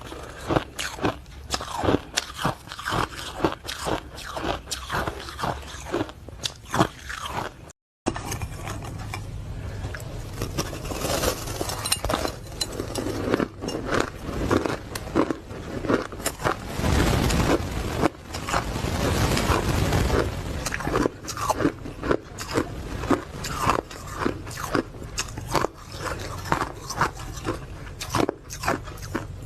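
Close-miked ice being bitten and chewed: rapid, irregular crunching and scraping of hard ice between the teeth. The sound drops out briefly about eight seconds in, then the crunching resumes, fuller and denser.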